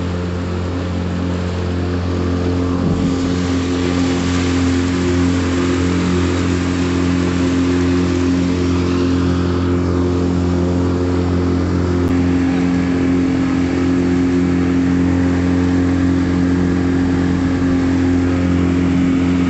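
Motorboat engine running steadily at speed, its hum holding one pitch, over the rush of water along the hull.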